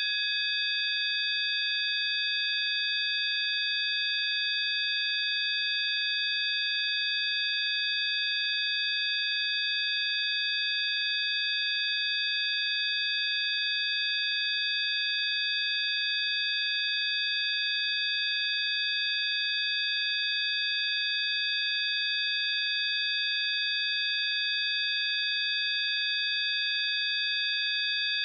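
Synthesized 'healing frequency' tone: several high, pure electronic tones sounding together, held perfectly steady without any change in pitch or loudness.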